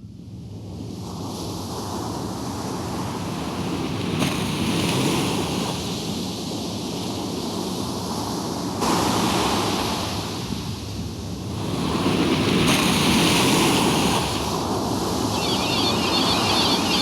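Loud, steady rushing noise that swells and ebbs, with abrupt changes in level and tone every few seconds. Near the end a high, warbling, repeating chirp joins in.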